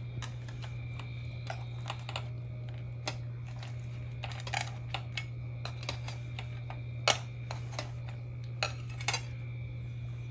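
Metal fork and knife clicking and scraping against an enamel plate as a piece of roasted kabocha squash is cut up, a scattered series of light clicks with louder clinks about four and a half, seven and nine seconds in. A steady low hum runs underneath.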